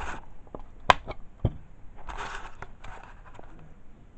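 Plastic fire alarm sounder being handled: a couple of sharp clicks and knocks, the loudest about a second in, then a stretch of scraping and rustling.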